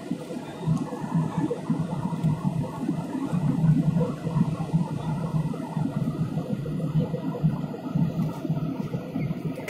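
Airliner cabin noise in flight: a steady low rumble of the engines and airflow through the fuselage.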